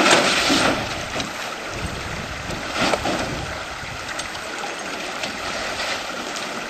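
River water rushing steadily over rocks. There is a louder swell right at the start and a shorter one about three seconds in.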